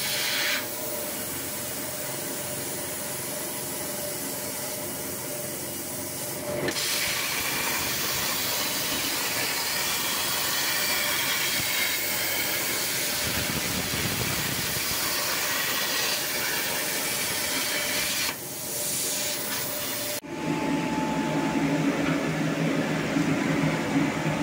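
CNC plasma cutter cutting 1.5 mm sheet steel: a steady hiss that shifts several times. About 20 seconds in it gives way to a lower, louder steady hum.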